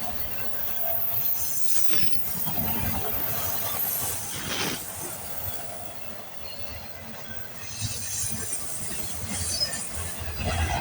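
Freight cars of an intermodal and autorack train rolling past, steel wheels running on the rails in a steady rumble, with brief high squeals from the wheels now and then.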